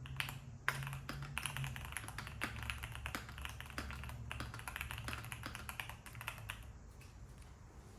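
Fast typing on a Keychron Q1 V2 mechanical keyboard with Gateron G Pro 3 Yellow linear switches, Cherry-profile keycaps and a tape mod. It is a quick, dense run of keystrokes that thins out and stops about two-thirds of the way through.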